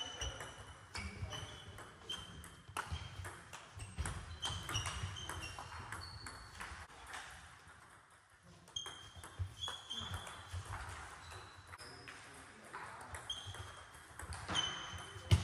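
Table tennis rally: the ball clicking quickly back and forth off the bats and the table, mixed with short high squeaks of shoes on the sports-hall floor, with a short lull in the middle. Clicks from rallies at other tables echo in the hall.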